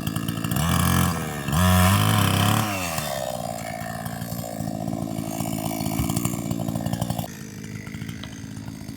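Small two-stroke petrol engine, such as a chainsaw or brush cutter, revving up and down twice, then running steadily before easing off near the end.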